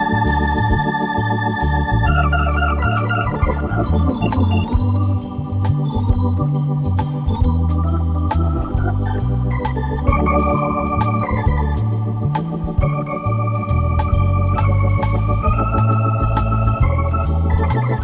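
Instrumental break in a slow soul-gospel ballad: an organ holds chords and plays a melody line over a bass that moves note by note, with light, regular drum ticks.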